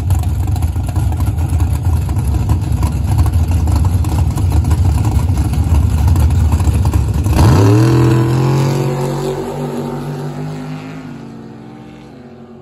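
Drag-race cars at the start line, their engines idling loudly with a choppy rumble, then launching hard about seven seconds in: the engine note jumps and climbs in pitch, then fades steadily as the cars race away down the strip.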